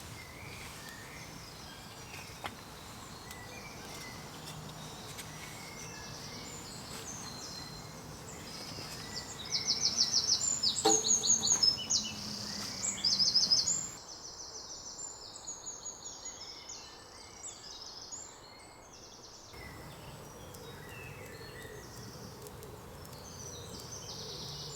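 Songbirds singing and chirping. About ten seconds in, a nearer bird sings two loud runs of fast, high trilling notes.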